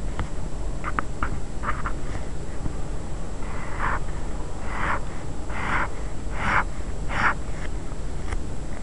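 Pen drawing straight lines on paper: five strokes in a row, each under half a second, starting about three and a half seconds in, after a few short ticks of the pen earlier, over a steady low hiss.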